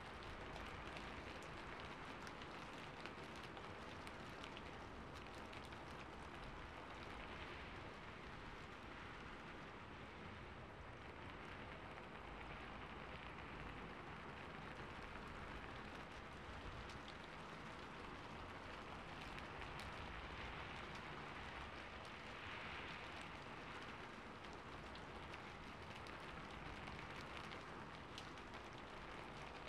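Soft, steady rain falling on a rooftop, a recorded ambience track, with many small drop ticks scattered through it.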